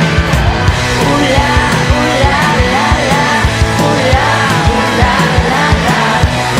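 Rock band playing with drums, guitar and bass, and a woman's lead vocal coming in about a second in.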